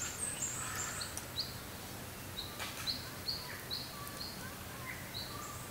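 Birds chirping: a string of short, high notes, two or three a second at times, over a faint steady background hum.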